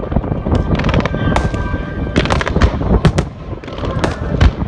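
Aerial fireworks bursting at close range: an irregular volley of a dozen or so sharp bangs and crackles, some in quick clusters.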